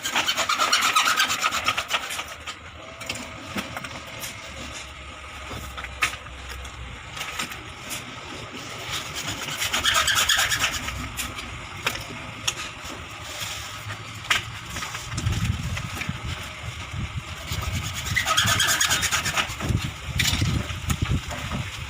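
Rubbing and scraping sounds in three louder stretches, with scattered sharp knocks and some low rumbling near the end.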